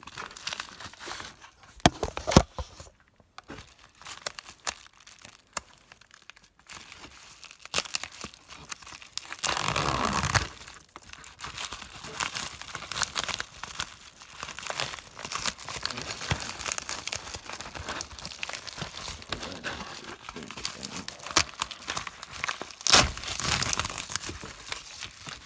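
Hands tearing open a shipping package and unwrapping its packaging: continuous crinkling and rustling, with a sharp tear about ten seconds in and another near the end.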